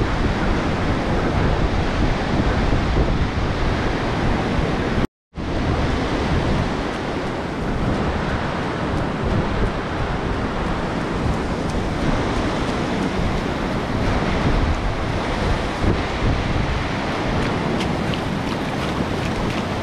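Wind buffeting the microphone over surf breaking on a sandy beach, a steady rushing noise with gusty low rumbles. The sound cuts out completely for a moment about five seconds in.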